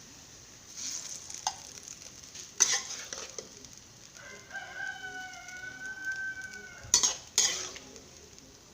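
Cooking utensils knocking and scraping against a pan and serving dish as the stir-fry is dished up, with a few sharp clinks, the loudest near the middle and near the end. A rooster crows once in the background for about two and a half seconds, in the second half.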